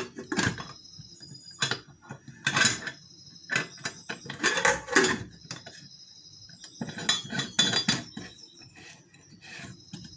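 Stainless-steel pressure cooker lid being fitted and clamped shut: irregular metallic clanks and clicks as the lid and its locking bar and knob are worked into place.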